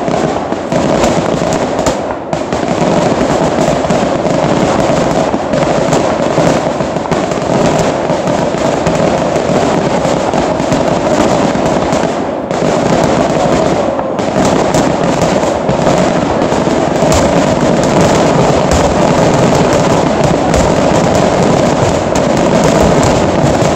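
A dense, unbroken barrage of aerial firework shells bursting and crackling, with a few short dips in the din.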